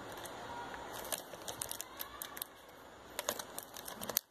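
Several light clicks and taps from handling a perfume bottle and its cap, over a low steady hiss; the background drops away abruptly near the end.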